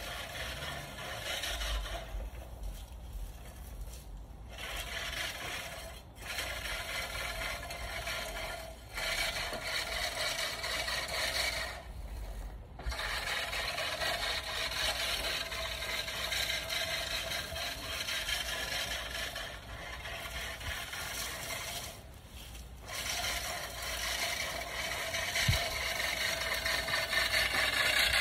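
Push reel lawn mower rolling over grass with its spinning blades cutting, in stretches of several seconds broken by short pauses.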